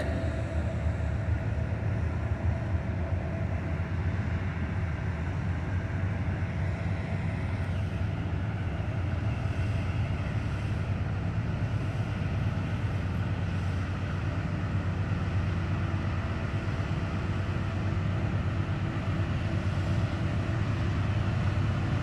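Two BNSF diesel freight locomotives working under power as they approach from a distance, a steady low engine rumble.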